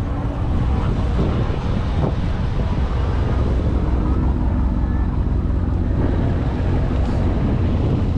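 Car engine running steadily with a low rumble.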